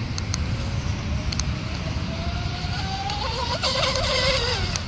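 Twin brushless motors (Rocket 3670, 1850kV, on 6S) of an RC mono speed boat running flat out. Their whine grows louder and rises in pitch, is loudest about four seconds in as the boat passes with a hiss of spray, then drops in pitch as it moves away.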